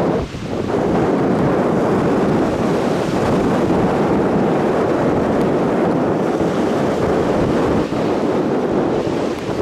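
Wind buffeting the microphone: a loud, steady rushing noise with a brief dip just after the start.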